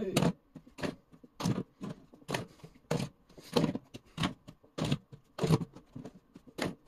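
A steady series of sharp clicks or knocks, about three every two seconds.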